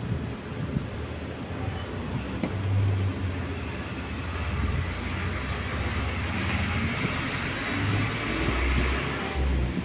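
Background rumble of road traffic, swelling twice as vehicles pass.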